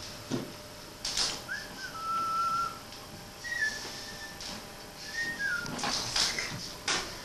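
A person whistling three short notes, the first gliding up to a held tone, the last sliding down. A few clicks and knocks of objects being handled on a bench come between them.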